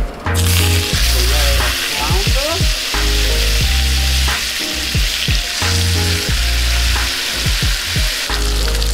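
Flounder fillets frying in hot foaming fat in a nonstick pan, a loud steady sizzle that starts suddenly about a third of a second in. Background music with repeating bass notes plays under it.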